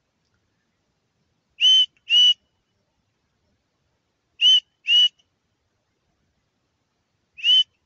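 A person whistling loud, high two-note calls, three pairs a few seconds apart, each note rising briefly and then holding. It is a recall whistle to a distant dog.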